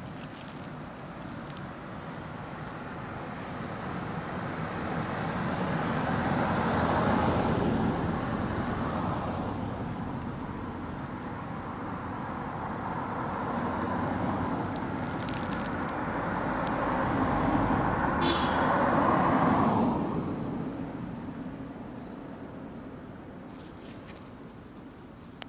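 Road vehicles passing one after another, the noise swelling and fading twice, the second pass louder, then dying away near the end. A brief high squeak just before the second pass peaks.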